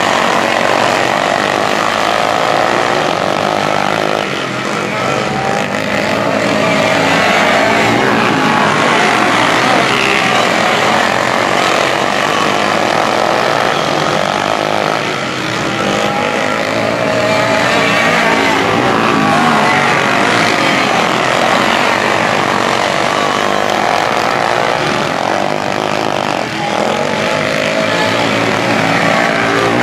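A pack of dirt-track racing karts with their engines running hard together, the engine pitch rising and falling over and over as the karts rev through the laps.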